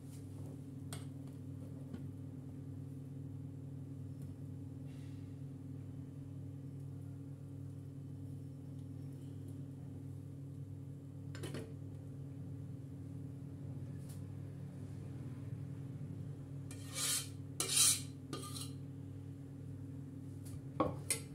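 Metal spoon clinking and scraping against a stainless steel pot as thick pudding is poured and scraped out: a few light taps, then a short burst of clatter about three-quarters of the way through, over a steady low hum.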